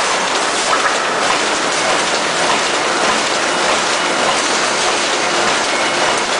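Rotary shear cut-to-length line running at speed, feeding and cutting thin metal sheet: a steady, dense mechanical clatter with no distinct separate strokes.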